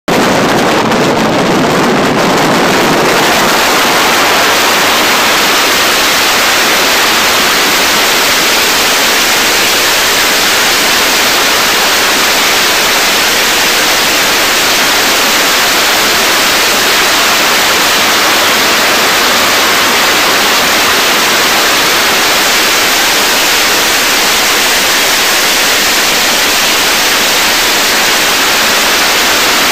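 Loud, steady rush of wind on the microphone of a camera riding on a fast-moving motorcycle, with no engine note standing out. It is a little deeper for the first few seconds, then settles into an even hiss.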